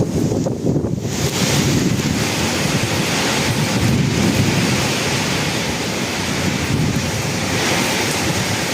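Heavy rain pouring down in a storm, with strong wind buffeting the microphone; the hiss of the rain swells about a second in.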